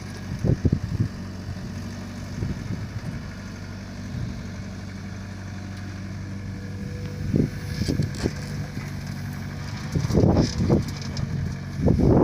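Diesel engine of a Volvo 55W excavator running steadily, with a few clunks and knocks as it works. The knocks are loudest and closest together near the end.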